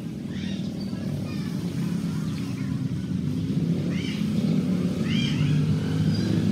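A steady low engine rumble that grows a little louder toward the end, with a few short, arching bird chirps over it.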